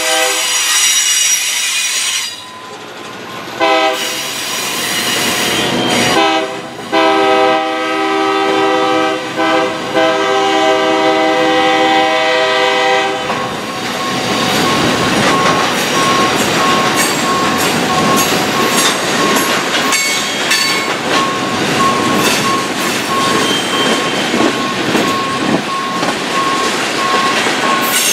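Locomotive air horn blowing several long blasts, with short breaks, over freight cars rolling past; after the last blast ends about halfway through, the cars' steel wheels clatter and squeal on the rails.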